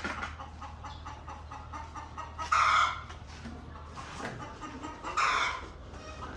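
A flock of laying hens clucking, with two louder squawking calls, one about two and a half seconds in and one near the end.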